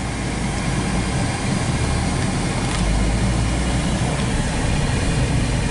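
Steady engine and road noise inside a moving car's cabin.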